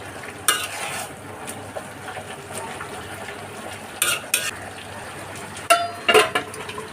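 Metal spoon stirring in a cooking pot, striking the pot in several sharp clinks that ring briefly, most of them in the second half. Underneath is a low, steady hiss of food frying.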